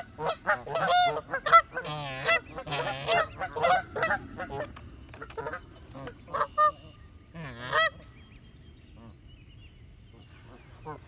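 Canada geese honking in a rapid run of short calls, thinning out after about five seconds, with one last longer call nearly eight seconds in before they fall quiet.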